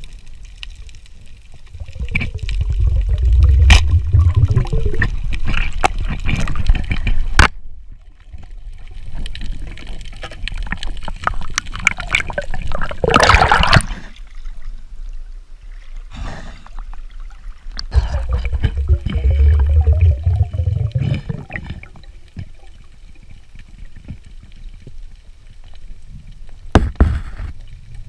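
Water rushing and gurgling around an underwater camera as a spearfisher swims, in two long surges, with a short loud splash about thirteen seconds in as the camera breaks the surface, and a few sharp clicks.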